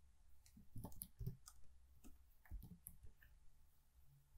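Faint clicks of computer keyboard keys being typed, a handful of irregularly spaced keystrokes over a faint low hum.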